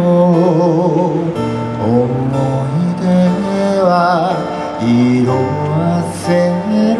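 A male singer-songwriter performing a ballad alone, singing held notes with vibrato over his own steel-string acoustic guitar, heard through a stage PA.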